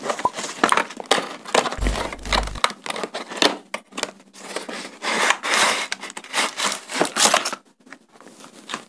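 Cardboard box of a flood light being opened by hand and the light slid out: irregular rustling, scraping and crinkling of cardboard and packaging.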